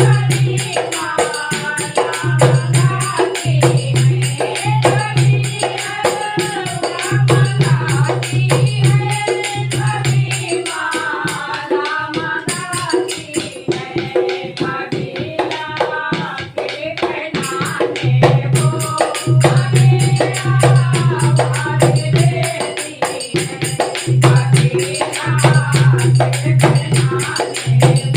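Hindu devotional bhajan music: a wavering melodic lead over steady jingling tambourine-like percussion and a pulsing bass note.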